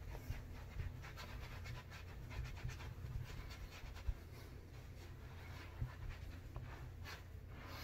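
Faint, irregular rustling of a plush towel being rubbed and patted against a bearded face and neck, drying off after a shave, with a few light bumps.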